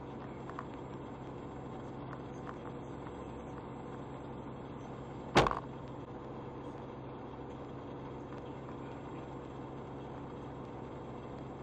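A hawk hitting a semi truck's windshield at highway speed: one sharp, loud crack about five seconds in, cracking the glass. Under it, the steady drone of the truck and the road noise in the cab.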